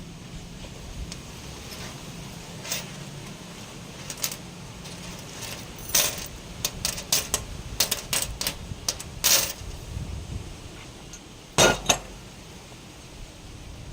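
Metal pieces clinking and clanking against each other in a scattered run of sharp clinks from about six to ten seconds in, with one louder clank near the end, over a low steady hum.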